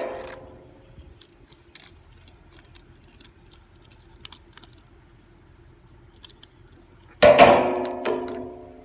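Hands handling fidget toys and their packaging: a loud burst of rustling at the start and a longer one about seven seconds in that fades out, with faint small clicks between.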